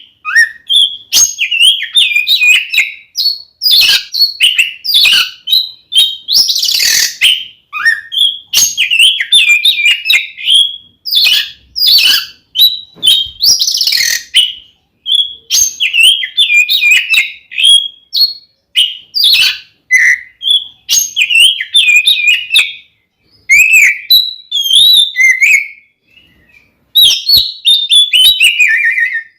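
Oriental magpie-robin (kacer) singing its aggressive fighting song: fast, varied whistled phrases with a few harsh, rasping bursts mixed in, and short breaks near the end.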